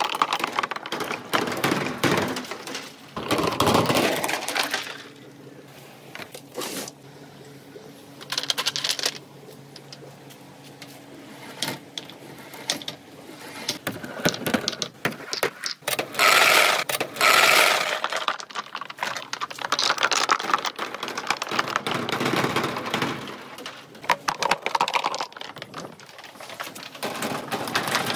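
Small billiard balls rolling and clacking along a plastic rain-gutter marble run: dense clicking and rattling that comes in bursts, with its loudest stretch a little past the middle.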